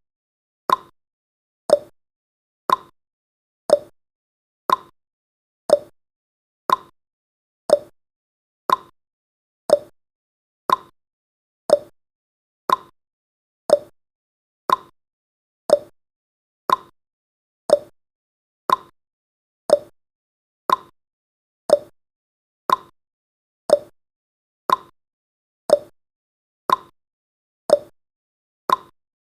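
Countdown timer's clock-style ticking sound effect: one sharp tick about every second, steady and even.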